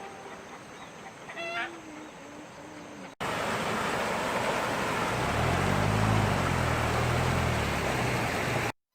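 Domestic fowl, geese-like, honking in short repeated calls. After a sudden cut, a louder steady rushing noise with a low engine drone that swells and fades like a passing motor vehicle, cutting off abruptly near the end.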